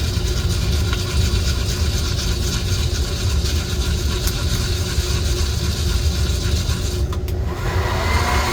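Coffee roaster running mid-roast: the drum turns with a steady mechanical rattle over a low motor and fan hum. Near the end a whine rises in pitch and then holds.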